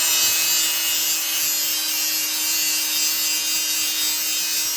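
Electric power sander running steadily against a surface: a steady motor hum under a bright, even grinding noise.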